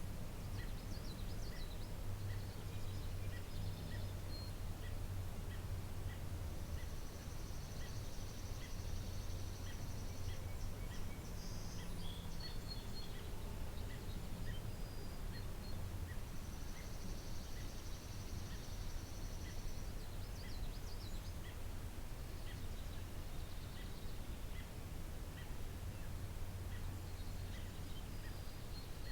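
Garden birdsong: a short high note repeated evenly about every two-thirds of a second, two long high buzzy trills of about four seconds each, and scattered chirps, over a steady low rumble.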